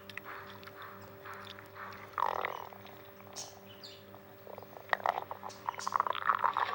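Stomach gurgling and growling: a falling growl about two seconds in, and a run of quick clicking gurgles near the end, over a faint steady hum.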